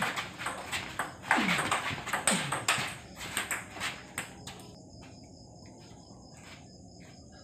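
Table tennis rally: a celluloid ball clicking in quick succession off the rubber bats and the table top for about four seconds, then stopping. Two falling-pitch calls sound about a second in, and crickets chirp steadily in the background.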